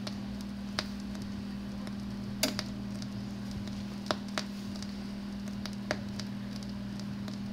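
A steady 200 Hz sine test tone from a test record, played back through an Ortofon Concorde MK II Club turntable cartridge, with a few sharp clicks over it.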